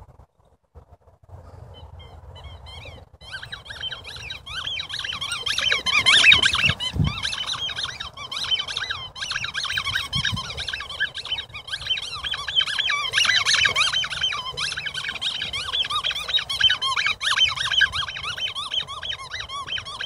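A Weimaraner chewing a squeaky Kong ball toy. It squeaks over and over in quick, high squeaks, starting about three seconds in and going on almost without a break.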